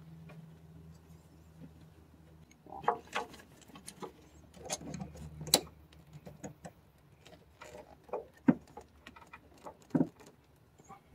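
Small rubber hose being worked by hand onto a plastic fitting: irregular rubbing, creaks and clicks as it is pushed and twisted into place.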